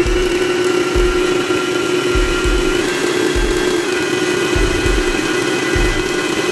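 Electric stand mixer running at low speed, its flat beater churning a butter, sugar and egg mixture in a metal bowl: a steady motor hum and whine, with a soft low thump repeating a little less than once a second.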